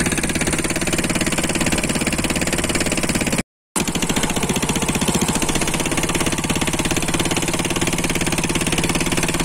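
Small wooden fishing boat's engine running steadily under way, with a rapid even pulse. The sound drops out completely for a moment about three and a half seconds in, then carries on unchanged.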